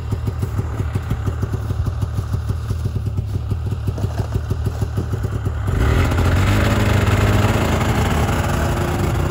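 Snowmobile engine idling with an even, rapid pulse, then revving up about six seconds in as the machine pulls away.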